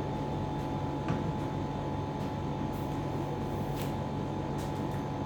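A steady machine hum with a constant pitch, with a few faint clicks over it.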